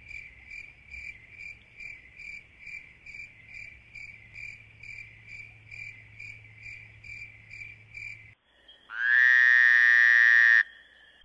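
Night chorus of short, high-pitched calls repeating evenly about twice a second, as from a calling frog or insect, stopping after about eight seconds. Then a much louder steady tone lasts about a second and a half and cuts off suddenly.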